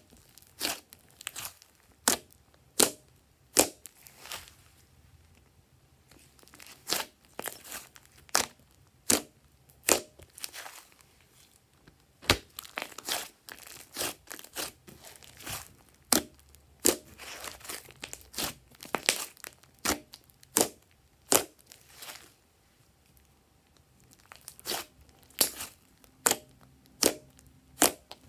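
Thick glossy slime mixed with clay being squeezed, poked and pulled apart by hand, giving sharp sticky pops one after another in irregular runs, with a few short pauses.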